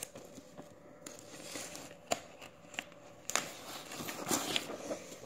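Adhesive tape and paper being handled and pressed down: crinkling and rustling with scattered small clicks. A faint steady hum runs underneath.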